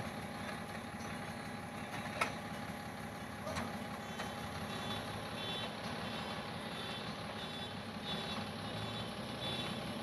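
A diesel excavator engine idling steadily close by, with faint short high beeps repeating irregularly in the second half.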